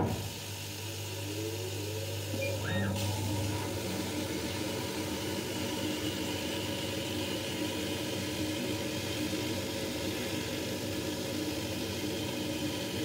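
Dual-head laser cutter running while it cuts birch plywood: a steady machine hum, with a few rising whines in the first few seconds.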